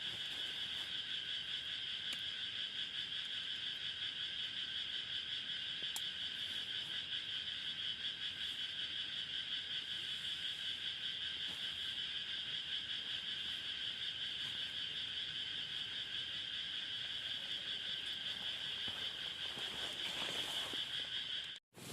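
Steady night chorus of calling frogs or insects, a dense high continuous trill that cuts out abruptly for a moment near the end.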